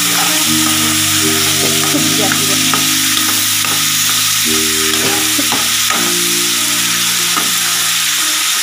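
Onion-tomato masala sizzling steadily in oil in a nonstick kadai, stirred with a metal spatula that scrapes and clicks against the pan now and then.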